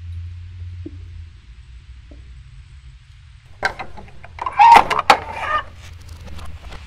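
A low steady hum with a few faint thuds, then, about three and a half seconds in, a burst of loud clicks and knocks lasting about two seconds.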